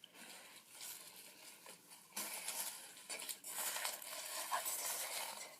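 Rustling and light clicking of packaging and plastic hair-dryer attachments being handled, uneven, with a short lull about two seconds in.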